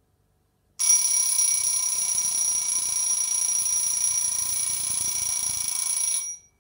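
Mechanical alarm clock going off: its bell rings loudly and steadily with a fast rattle of the striker, starting about a second in and cutting off abruptly near the end.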